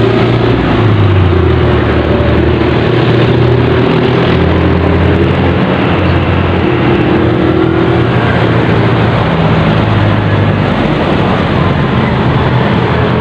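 An engine running steadily: a low drone whose pitch drifts slightly, with a noisy hiss over it.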